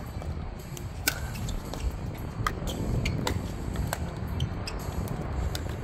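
Pickleball rally: a handful of sharp pops of paddles hitting the ball, irregular and roughly one a second, over a steady low rumble.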